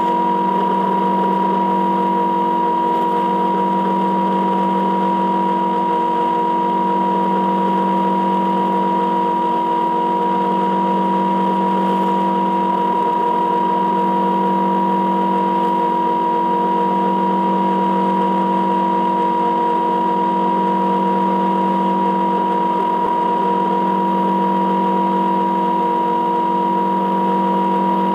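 Metal lathe running steadily while an end mill turning in its spindle cuts a mild steel block. A steady whine with a slow, regular pulse underneath.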